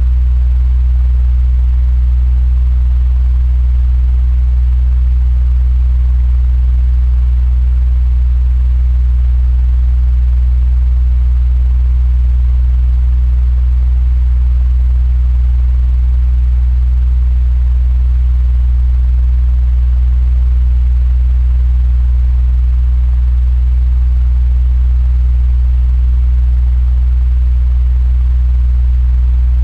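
Electric fan running steadily: a strong, even low hum from the motor with a faint airy hiss above it.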